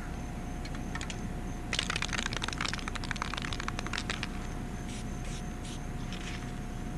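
Reflective glass beads sprinkled onto freshly painted curb numbers: a dense pattering of tiny grains hitting the stencil and concrete for about two seconds, then a few shorter sprinkles near the end.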